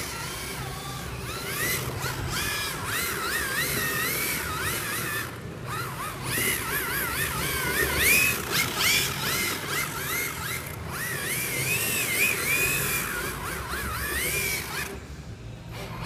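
The electric motor of an MST FXX-D rear-wheel-drive RC drift car whining as the throttle is blipped, its pitch rising and falling again and again, over a steady hiss.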